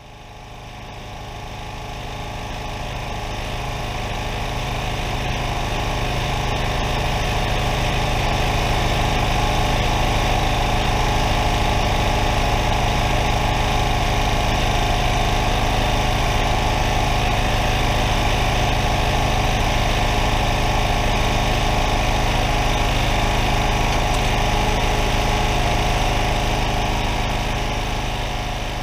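Steady engine noise from a John Deere 3032E compact tractor working close to a log splitter's small gas engine. It fades in over the first several seconds and eases off near the end.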